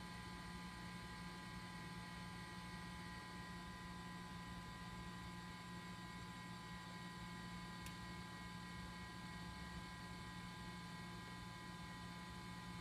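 A compact Macintosh running while it starts up: a faint steady hum with several thin steady tones above it, and one faint tick about eight seconds in.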